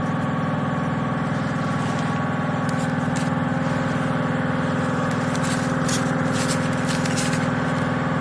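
A motor running steadily with an even hum, with a few faint clicks and scrapes in the second half.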